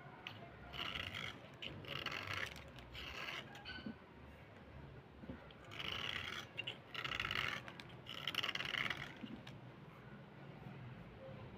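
A small blade scraping along a dry slate pencil in short strokes, shaving off its powdery surface. Several strokes come in the first four seconds, then, after a short pause, three longer ones between about six and nine seconds.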